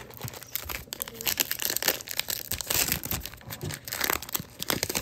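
A 2021 Topps Allen & Ginter trading-card pack wrapper being torn open and crinkled by hand: a dense run of irregular crackles and rips.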